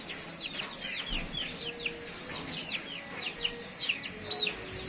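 Birds chirping: many short, high chirps, several a second and overlapping, from a group of birds such as chicks or small birds on the farm.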